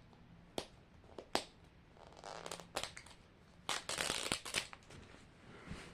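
Plastic wrapper on a Mini Brands capsule being handled and picked at: bursts of crinkling with several sharp clicks, the busiest stretch about four seconds in.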